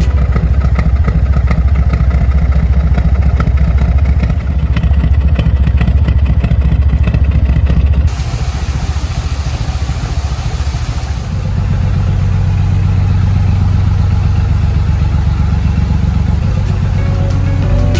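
Narrowboat's diesel engine running steadily in a canal lock, a loud low rumble. The sound changes abruptly twice: a rushing hiss comes in about eight seconds in, then a steadier low engine hum from about eleven seconds on.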